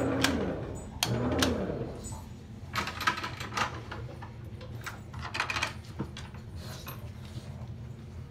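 Electric motor of a homemade plywood dog stairlift winding down to a stop, then giving a short whir about a second in. After that come scattered light clicks and rattles, with a faint steady hum underneath.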